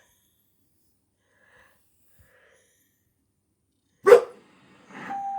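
A pet dog's single loud bark about four seconds in, after near silence; the dog is barking at a doorbell on the television. A faint steady tone begins near the end.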